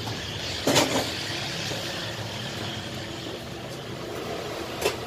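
Steady hum of passing road traffic, with two short knocks, one about a second in and one near the end.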